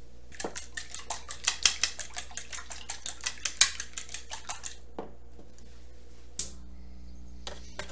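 A fork beating eggs and milk in a ceramic bowl, rapid clinks of metal on the bowl about five or six a second for some four seconds. A single sharp clack follows near the end.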